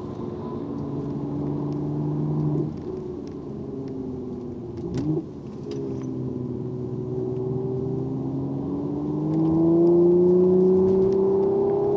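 Mercedes-AMG C43's twin-turbo V6 heard from inside the cabin, running steadily as the car slows for a corner, with two short blips of revs about three and five seconds in. From about eight seconds in the engine note rises steadily and gets louder as the car accelerates out under boost.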